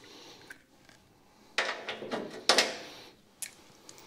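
Craftsman steel sockets clinking against each other and sliding on a metal socket rail as they are handled. A faint click comes first, then a quick run of sharp metallic clinks about one and a half to two and a half seconds in.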